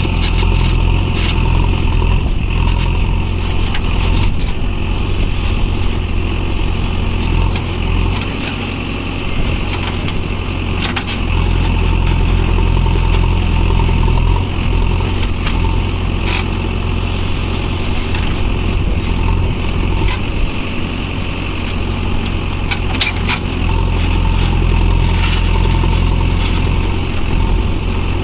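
JCB backhoe loader's diesel engine running steadily under working load, a deep continuous rumble, with a few short knocks from the machine working.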